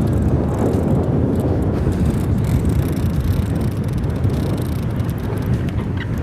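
Steady low rumble of wind buffeting the microphone on an open fishing boat.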